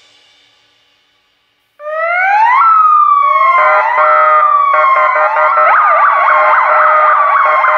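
A punk track fading out to a moment of silence, then a recording of sirens opening the next track: several sirens overlapping, each rising quickly and then falling slowly, joined in the second half by a faster up-and-down yelp.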